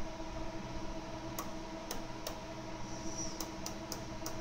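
Seven sharp, irregularly spaced clicks, as of a control switch or key being worked, starting about a second and a half in, over a steady low electrical hum.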